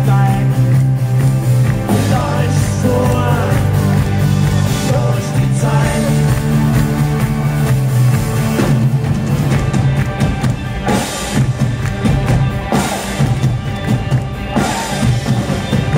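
Live rock band playing loud through a PA system, with a drum kit and electric guitars.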